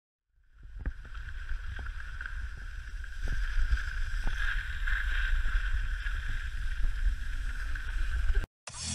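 Wind buffeting an action camera's microphone during a downhill ski run, with the steady hiss of skis sliding over snow and a few light clicks; it cuts off abruptly near the end.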